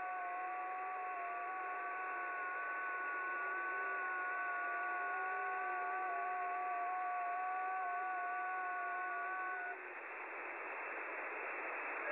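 Shortwave receiver audio on the 12-metre band: several FT8 digital-mode signals heard at once as steady tones that step slightly in pitch, over band hiss. About ten seconds in the tones stop together at the end of the FT8 transmit period, leaving only the hiss.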